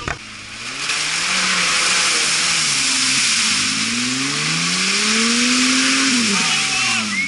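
Off-road 4x4's engine revving up and down under load, its pitch climbing to a peak and then dropping near the end, over a loud steady hiss that sets in about a second in.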